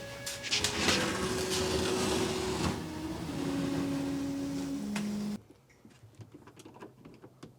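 Background music with held synth-like notes, overlaid for the first few seconds by a loud hissing mechanical noise with a few sharp clicks. The music cuts off suddenly a little over five seconds in, leaving only faint clicking.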